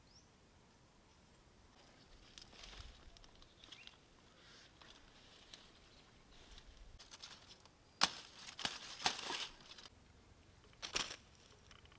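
Dry pineapple leaves rustling and crackling as the plants are handled, with bursts of sharp crackles about eight seconds in and again near the end.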